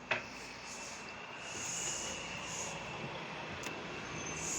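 Steady traffic noise from a bus station and street, with a sharp click right at the start.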